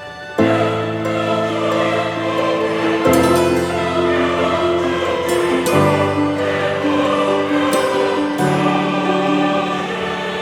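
Background music with sustained chords and a choir-like vocal texture, starting about half a second in, the chords changing every few seconds.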